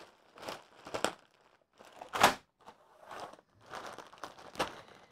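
Clear plastic bags full of small plastic building bricks crinkling as they are handled, in a series of short rustles with the loose bricks shifting inside.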